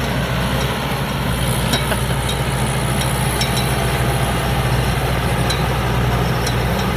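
Rice combine harvester running steadily while cutting a thin crop: a steady low engine drone with the machinery turning over, and a few faint ticks.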